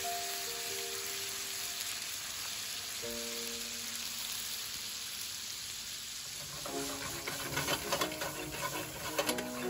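Butter glaze sizzling and bubbling hard in a hot frying pan around whole carrots as it reduces. Sharp crackles and spits grow denser about seven seconds in.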